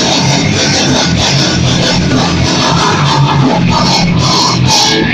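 Death metal band playing live at rehearsal volume: heavily distorted electric guitar over fast drums and crashing cymbals. The song stops abruptly near the end, leaving a ring that dies away.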